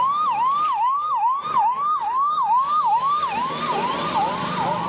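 Ambulance's electronic siren in a fast yelp, its pitch rising and dropping sharply about three times a second. About halfway in, a second, off-beat siren cycle overlaps it, and the noise of traffic grows.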